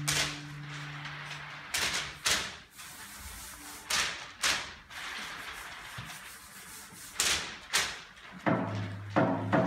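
String orchestra making sharp, unpitched percussive hits, mostly in pairs about half a second apart with pauses of over a second between them. Near the end, accented bowed string chords with a low bass line come back in.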